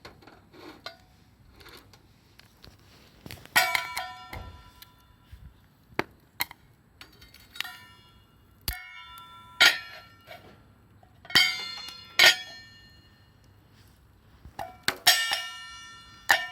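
Metal objects knocking together in irregular clanks and clinks, each leaving a short ringing tone, about ten in all with the loudest in the middle and near the end.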